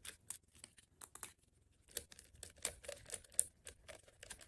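Faint, irregular small clicks and rustles of electrical wires and plastic connectors being handled during wiring work, with a short pause about a second and a half in.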